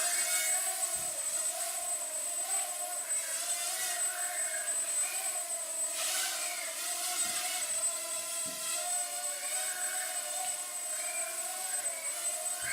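IMEX BrickFlyer mini quadcopter's four small 8520 motors and propellers whining steadily in flight, the pitch wavering slightly up and down.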